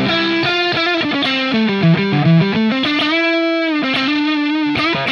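Distorted electric guitar played through overdrive pedals: a single-note phrase, moving between notes and then holding long sustained notes. No hum or interference from the power supply is heard under it.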